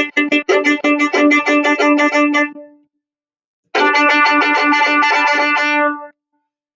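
Instrumental music: rapid, evenly repeated notes, about five or six a second, over a steady held note. It comes in two passages, with a break of about a second between them.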